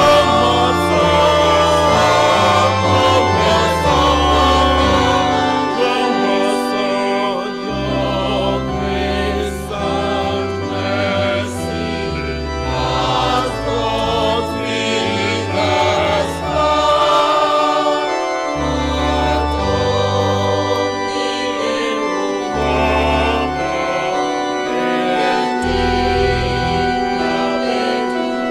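A choir singing a hymn in parts, with an organ accompanying and its bass notes changing every couple of seconds.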